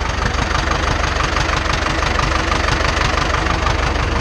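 Farm tractor's diesel engine idling steadily, heard close up from the driver's seat.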